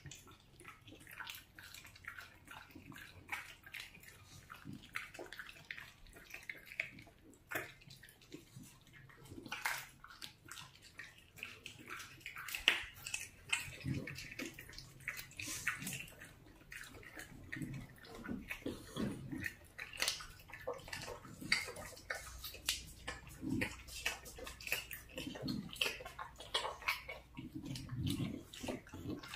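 Dogs eating raw duck meat: wet, irregular chewing, smacking and licking sounds.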